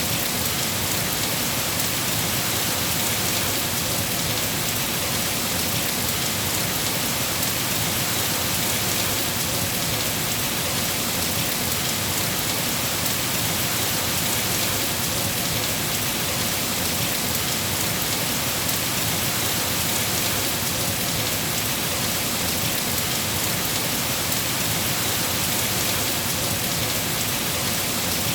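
Steady, heavy rain falling and pattering on surfaces, an even hiss with no thunder claps or breaks.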